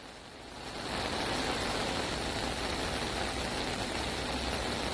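Heavy rain falling on a flooded street while floodwater gushes up from a storm drain: a steady rushing noise that swells in over the first second and then holds.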